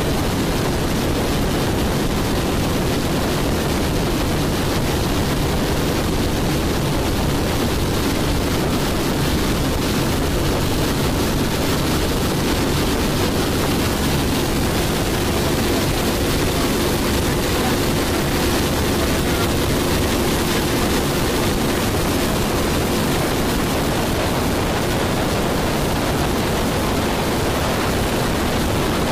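Steady drone of a boat under way: engine hum with faint steady tones under a constant rush of water and wind noise, unchanging throughout.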